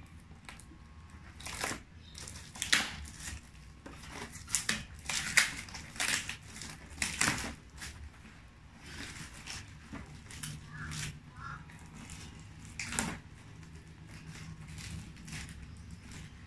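A cardboard box being torn open by hand: its sealing tape and flaps ripping and crackling in an irregular run of sharp rips.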